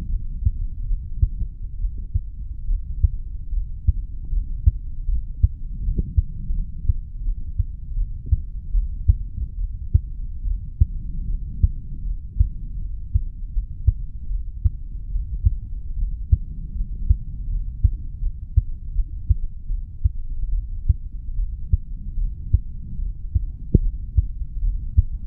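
Human heartbeat heard through a chest recording over the mitral valve area: regular low thuds repeating steadily over a low hum, the heart of a 35-year-old man after lifting weights.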